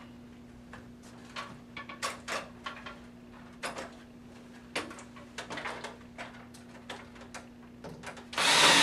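Scattered light clicks and knocks of an aluminium curtain track and a stepladder being handled, over a steady low hum. Near the end a power drill starts up loudly, driving a self-drilling hex-head Tek screw through the aluminium track into the wood above.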